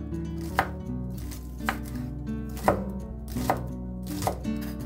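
Kitchen knife slicing through a bunch of green onions and striking a wooden cutting board, about five cuts roughly a second apart, over background guitar music.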